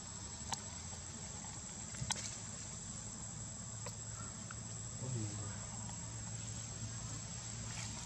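Steady high-pitched trill of insects in the background, with a couple of faint clicks about half a second and two seconds in.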